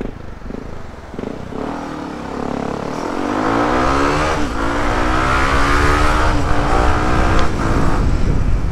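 Yamaha WR155R's single-cylinder engine accelerating, its pitch climbing steadily from about three seconds in with two brief hitches, growing louder, over wind noise on the helmet microphone.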